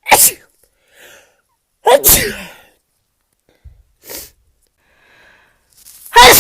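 A woman sneezing in quick succession: three loud sneezes, one at the start, one about two seconds in, and one near the end, with fainter, shorter sounds between them.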